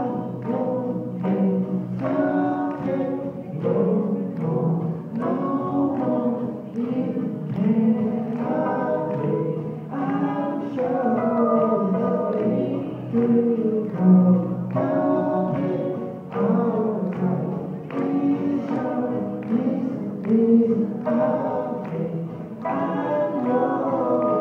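Live acoustic song: an acoustic guitar strummed under a man and a woman singing into microphones.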